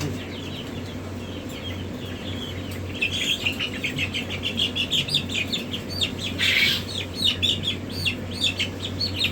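A brood of young chicks peeping: many short, high cheeps that grow busier about three seconds in. A brief rustle comes a little past halfway, and a steady low hum runs underneath.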